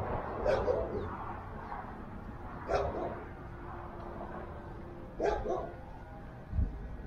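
A dog barking: three short barks spaced a couple of seconds apart, with a low thump near the end.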